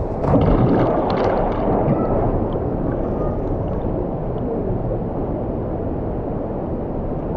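Steady rushing of river water, with a few short knocks in the first couple of seconds.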